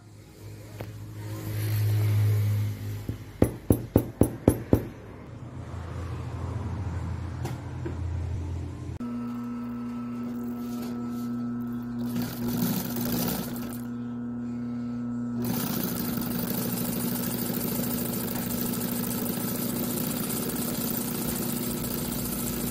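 Industrial sewing machine's motor running with a steady hum, joined after a few seconds by the denser sound of the machine sewing through thick nylon webbing. Before that, a run of six sharp clicks in quick succession.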